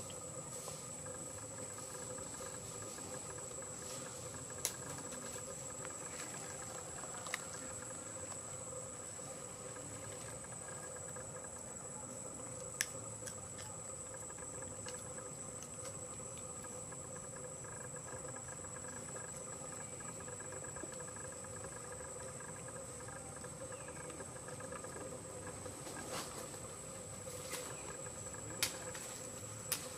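Outdoor ambience dominated by a steady, high-pitched insect drone, with a lower steady hum beneath it and a few sharp clicks scattered through.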